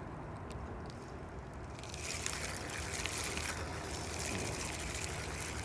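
Water rushing out of the opened dam, a steady low rumble with a hiss that grows louder about two seconds in.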